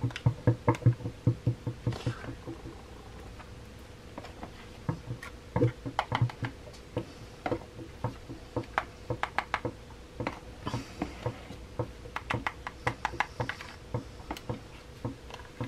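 Light, irregular clicks and taps of a spoon and plastic containers as chip dip is scooped out of a tub into a small cup.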